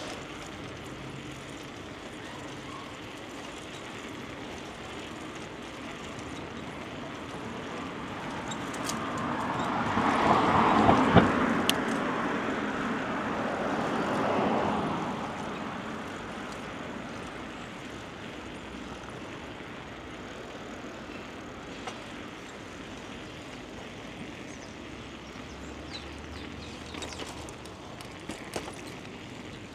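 Steady rush of wind and tyre noise picked up by a chest-mounted action camera on a moving bicycle. A louder rush builds for a few seconds, is at its loudest about ten seconds in, and fades out by about sixteen seconds in. There are a few light clicks.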